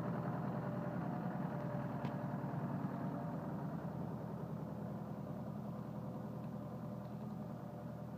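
Log skidder's diesel engine running steadily under load as it drags a big oak log with its grapple, gradually fading as the machine moves off.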